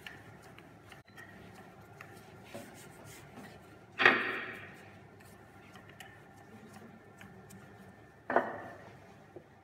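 Wooden rolling pin rolling out a block of puff pastry on a floured stone counter: a soft rubbing of the pin over the dough, broken by two sharp knocks, one about four seconds in and one near the end.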